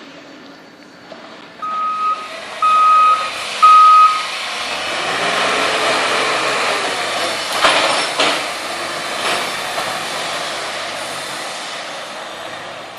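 Construction vehicle's reversing alarm beeping three times, then its engine running louder, with two sharp metallic knocks about eight seconds in.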